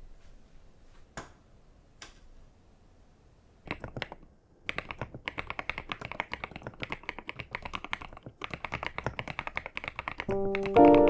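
Typing on a mechanical keyboard: a few separate keystrokes, then steady, fast typing from about five seconds in. Background music comes in near the end.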